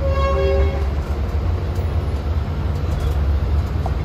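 Passenger train running with a steady low rumble, and a short pitched tone sounding briefly at the start.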